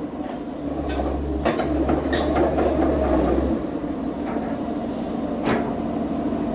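Komatsu PC200-8 crawler excavator's diesel engine running with a deep rumble that drops away about three and a half seconds in, with several sharp knocks over it.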